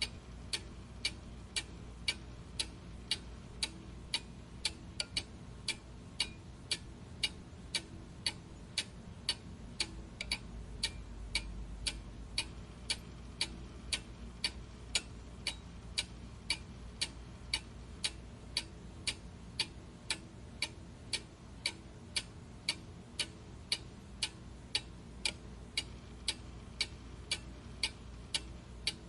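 A clock ticking steadily and evenly, about two sharp ticks a second.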